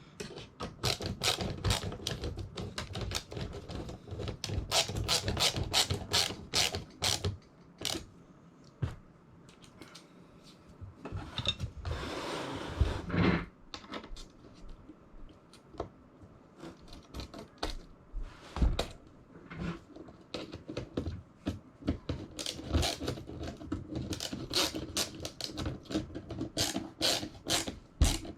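Hands fitting plastic and metal parts of a kayak crate accessory setup: many irregular clicks and knocks, with a longer rasping scrape about twelve seconds in.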